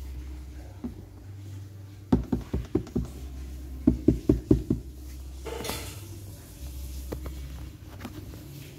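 Two quick runs of five or six hollow knocks on the plastic casing of a small water dispenser, about a second apart, with a short rustle after them and a low hum underneath.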